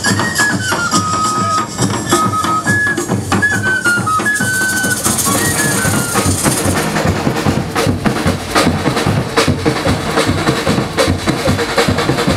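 Carnival band music: dense drums and percussion under a high, stepping melody line that drops out about five seconds in, leaving the drumming.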